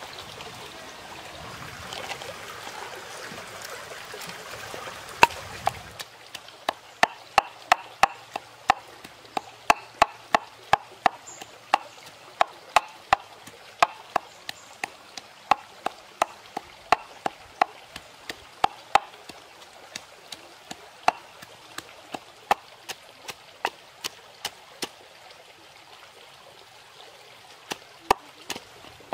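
Wooden pestle pounding chilies, garlic and salt in a clay mortar: sharp knocks about two a second, starting about six seconds in and thinning out in the second half. Before the pounding starts, a steady rush of stream water.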